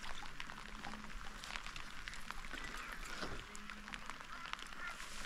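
Rain falling on the dam's open water: a steady hiss dotted with the patter of single drops.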